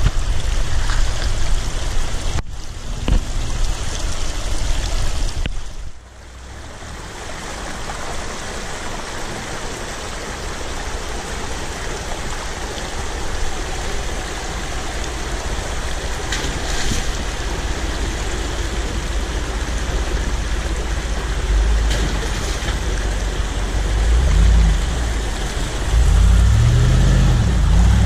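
A shallow rocky creek rushing right at the microphone, with pickup truck engines running as the trucks crawl through the water. The sound drops suddenly about six seconds in, then builds. Near the end a Dodge Ram pickup's engine grows louder and revs up and down as it comes through the creek.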